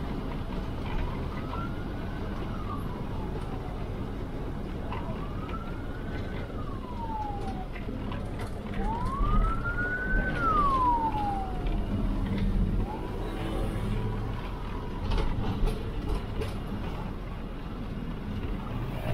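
A siren wailing: four slow rising-and-falling wails about four seconds apart, the third the loudest and the last fainter. Under it runs the steady noise of the bus's engine and road, heard from inside the cabin.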